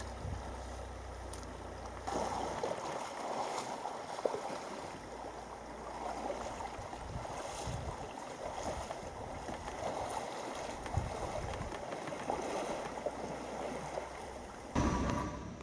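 Steady rushing of a shallow river's current, with wind rumbling on the microphone for the first couple of seconds and a brief louder burst of noise near the end.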